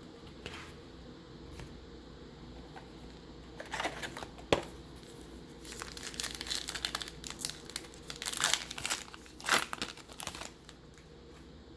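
Crinkly plastic-foil wrapper of a baseball card pack being torn open and handled, in irregular crackling bursts starting about four seconds in, with a sharp snap near the start.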